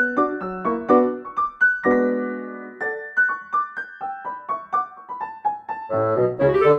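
Background music: a light keyboard melody of separate notes, with a held chord about two seconds in followed by a falling run of single notes.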